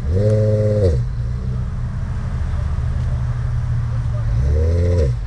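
A car engine idling, blipped twice with short throttle revs that rise, hold briefly and drop back: once right at the start and again near the end.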